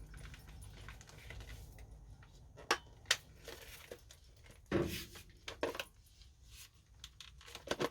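A few scattered plastic clicks and knocks from handling a cordless vacuum cleaner's parts as a hook attachment is slid into place.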